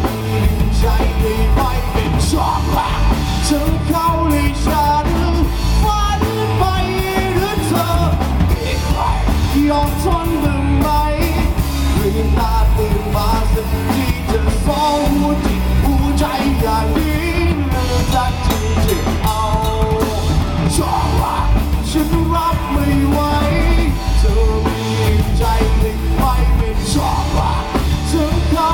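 Rock music with a singer's voice over drums and bass.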